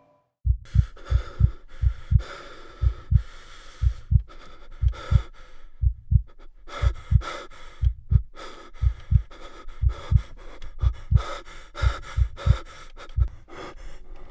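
A fast, pounding heartbeat, each beat a low double thump, under loud, heavy panting breaths. Both start about half a second in and cut off suddenly at the end.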